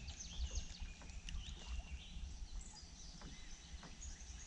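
Faint outdoor ambience: birds chirping and calling in the background over a low rumble of wind on the microphone.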